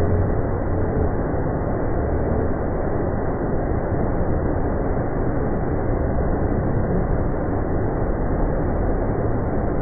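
Water pouring over a low stone weir in many small falls and splashing into a shallow pool: a steady rushing noise that does not change.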